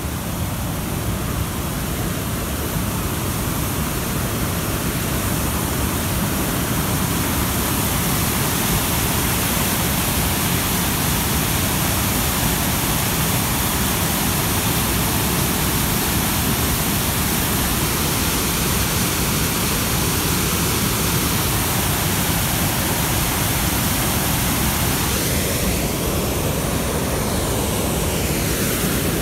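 Waterfall rushing steadily: a large volume of brown river water pouring over wide, stepped rock ledges.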